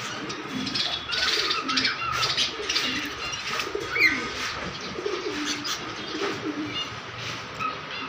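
Pigeons cooing in low, wavering calls, over many small cage birds chirping, with one sharper, louder call about four seconds in.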